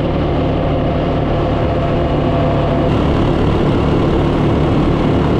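ATV engine running steadily while riding under way.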